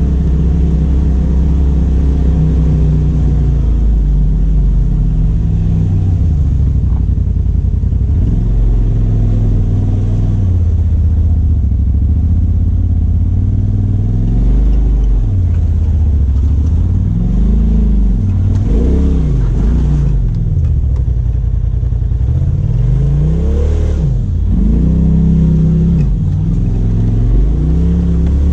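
Side-by-side UTV engine heard from the cab, pitch rising and falling repeatedly as the throttle is worked over a rocky, rutted trail, with several short revs past the middle and again near the end.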